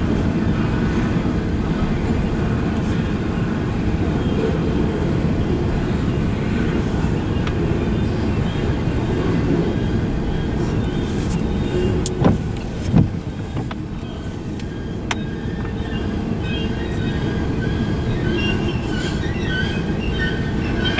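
Freight cars of a manifest train rolling past over the rails in a steady low rumble, with two sharp bangs a little past halfway. High, wavering wheel squeal starts near the end.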